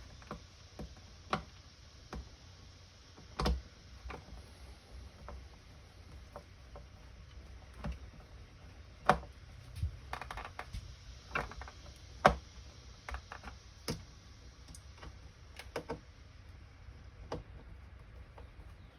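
Irregular light clicks and taps, about one a second, from hands handling the hard plastic case of a jump starter; the sharpest clicks come about halfway through.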